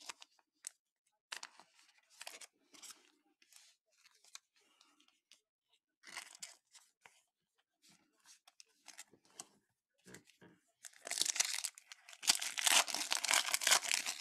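Trading cards handled and slid against each other, soft scattered clicks and rustles, then about eleven seconds in a foil trading-card pack wrapper torn open and crinkled, loud and continuous.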